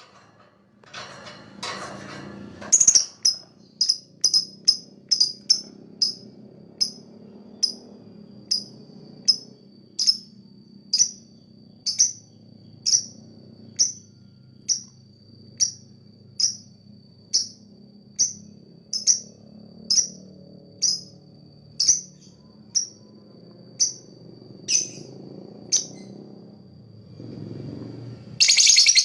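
Lovebird giving single short, sharp, high chirps, evenly spaced at about one a second, over a faint steady high whistle. A dense run of rapid chirps starts right at the end.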